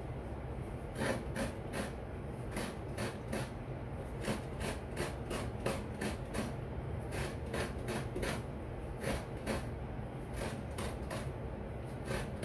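Fresh coconut meat being grated: a coconut half is scraped against a coconut grater's serrated blade in quick repeated strokes, about three a second, each a short rasp. The strokes start about a second in and pause briefly twice, as the shell is turned.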